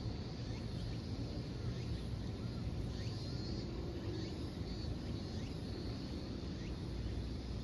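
Steady outdoor ambience: a low rumble under a faint high insect hum, with a few faint, short, rising chirps scattered through.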